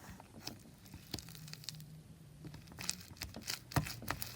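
Soft crinkling and scattered small clicks of a plastic slime container being opened and handled, busiest about three seconds in.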